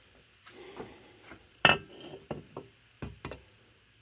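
Small metal carburetor parts clinking and knocking as they are handled on a workbench: a string of light clicks with one sharper knock about a second and a half in, and two quick clinks near the end.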